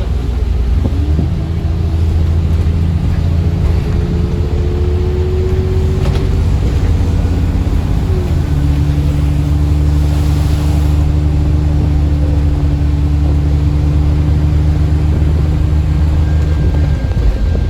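Alexander Dennis Enviro 400 MMC double-decker bus under way, its engine and Voith automatic gearbox giving a low drone with a tone above it. The tone rises slowly, drops at a gear change about eight seconds in, holds steady, then falls away again near the end.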